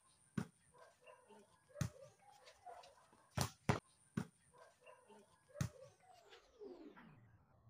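A volleyball being struck by hands and forearms during a rally, about six sharp smacks spaced irregularly, with faint voices of players in the background.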